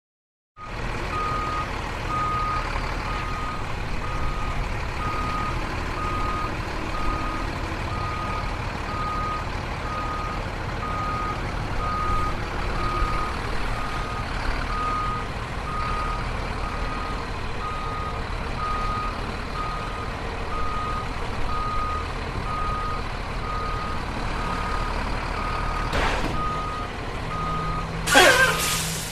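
A vehicle's reversing alarm beeps evenly at one high pitch over the low rumble of an engine. Near the end there is a brief squeal that falls sharply in pitch.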